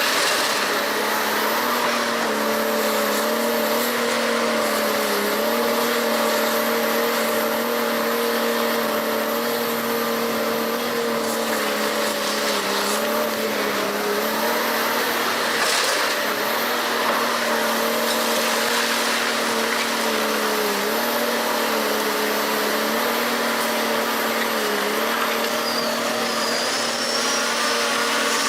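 A heavy machine's engine running steadily with a droning hum, its pitch dipping briefly a few times.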